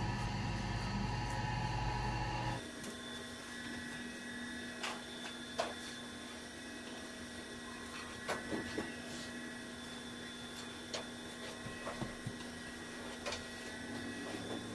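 Steady background hum, with a lower hum that cuts off abruptly about two and a half seconds in. Over it come scattered light clicks and scrapes as crumbly coconut macaroon mixture is scooped by a rubber-gloved hand from a stainless steel bowl and spread into a baking tray.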